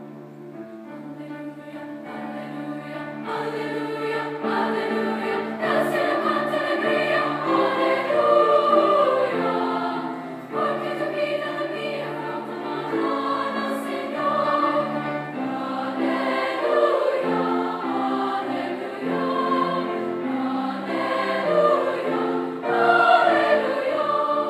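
Middle-school honor choir of seventh and eighth graders singing in parts, holding sustained chords; it begins softly and swells over the first few seconds, then stays full.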